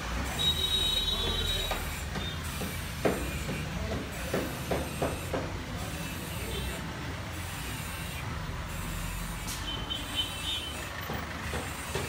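Market street ambience: a steady low traffic rumble with faint voices, a few sharp clicks around three to five seconds in, and brief high squeals near the start and again near the end.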